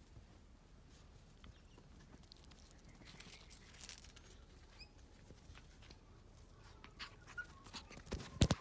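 Faint patter of puppy paws on concrete, with scattered light clicks and a few sharp knocks near the end.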